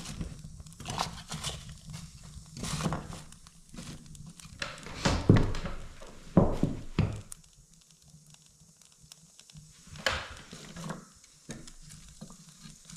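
Irregular knocks and scuffs of a person moving about with ski gear, about one every half second to second, thinning out after about seven seconds with one last knock near ten seconds.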